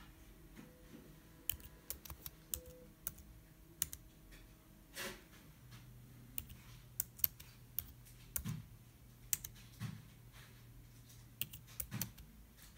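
Computer keyboard keys being typed in short runs of clicks, entering G-code commands. Under the typing runs a faint steady hum that drops to a lower pitch about five seconds in.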